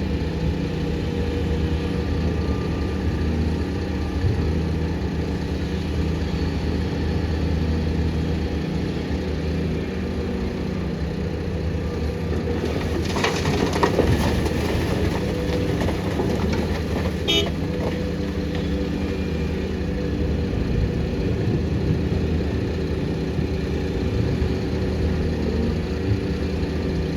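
Heavy diesel engines of an excavator and dump truck running steadily at work. About halfway through there is a louder rough stretch of a few seconds, followed by a short sharp tone.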